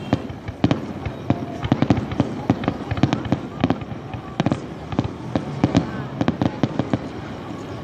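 Aerial fireworks display going off: a rapid, irregular series of sharp bangs and cracks, several a second.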